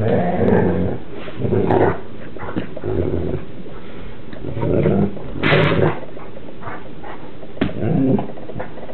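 Newfoundland dogs play-wrestling, making seal-like vocalizations in short bursts about a second apart, with a harsher, louder burst about five and a half seconds in.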